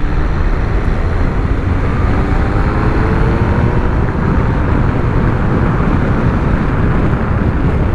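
MV Agusta Turismo Veloce 800 motorcycle on the move, its three-cylinder engine pulling with a note that climbs slowly in pitch partway through. A heavy, steady rush of wind and road noise on the rider's microphone dominates.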